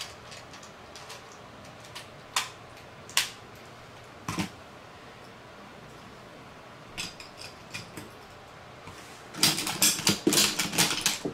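A few separate sharp plastic clicks as an Akedo figure is fitted onto its battle controller. Near the end comes a rapid flurry of plastic clacking as the controller buttons are mashed and the two Akedo Battle Giants figures punch at each other.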